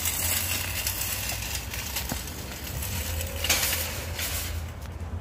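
Metal shopping cart rattling as its wheels roll over asphalt.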